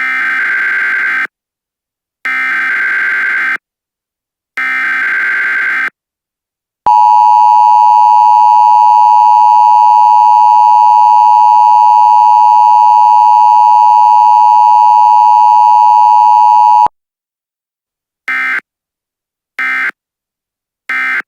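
Emergency Alert System signal: three data bursts of the SAME header, each about a second long with gaps between, then the steady two-tone attention signal for about ten seconds, then three short data bursts near the end.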